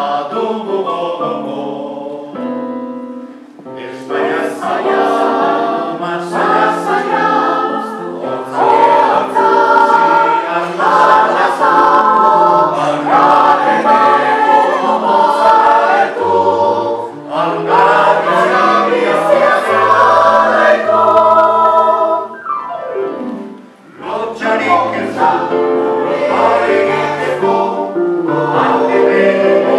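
Mixed choir of men's and women's voices singing a cappella-style harmony, with two brief breaks between phrases, about three seconds in and again in the last quarter.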